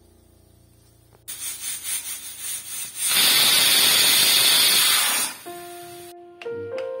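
Stovetop pressure cooker venting steam under its weight valve, as it does once it has built up pressure. A sputtering hiss starts about a second in, swells into a loud steady hiss for about two seconds, then dies away. Background music with a few held notes comes in near the end.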